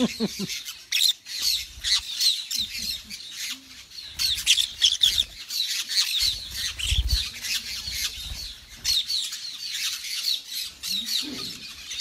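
A flock of parakeets, maroon-bellied conures among them, chattering in a continuous stream of short, shrill chirps and squawks while feeding.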